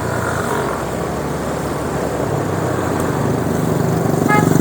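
Motorbike engine running as it is ridden, with road and wind noise, getting louder near the end as it speeds up.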